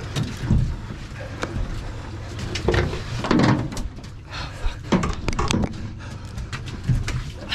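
Indistinct shouts from a fishing crew mid-fight, with knocks and bumps on a small boat's deck, over a steady low rumble.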